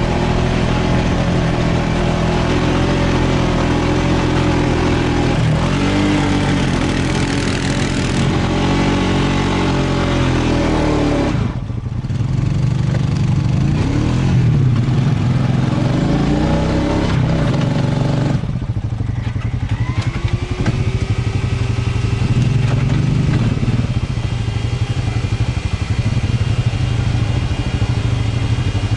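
Honda ATV engines running close by and revving, the engine pitch rising and falling several times as the throttle is worked. The engine sound dips briefly about twelve seconds in and again about eighteen seconds in, each time coming back up with a rising rev.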